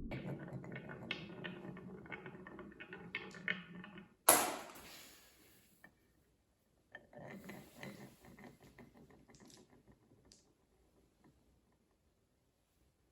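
Marbles rolling and clattering along a wooden marble run track: rapid clicks and rattles over a low rolling rumble, then one loud sharp clack about four seconds in that dies away over a second or so. After a brief pause, lighter clicking and rattling starts up again and fades out.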